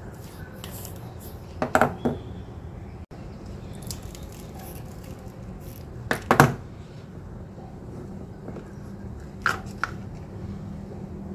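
Kitchen utensils and containers being handled: three short clusters of sharp knocks and clicks, about two seconds, six seconds and nine and a half seconds in, over a steady low hum.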